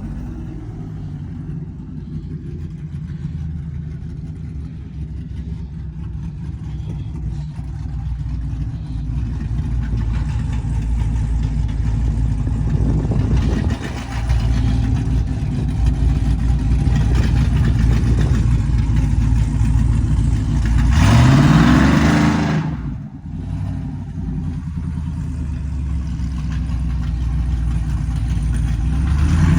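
Car engines idling with a steady low note, and one engine revved about three quarters of the way through, its pitch climbing sharply before it drops back.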